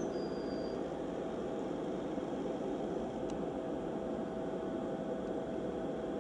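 Boeing 767's twin jet engines running at low taxi power as the airliner rolls onto the runway, heard as a steady noise with a faint steady hum.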